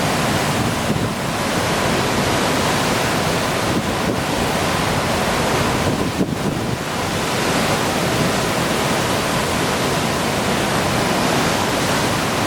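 Hurricane wind blowing hard: a steady, loud rush of noise with no breaks.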